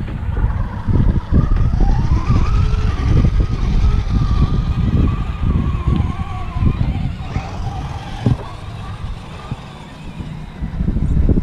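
Axial UMG10 rock crawler's Hobbywing AXE brushless motor whining as the truck crawls over rock, its pitch rising and wavering with throttle from about two seconds in and fading near the end. A heavy low rumble on the microphone is the loudest sound throughout.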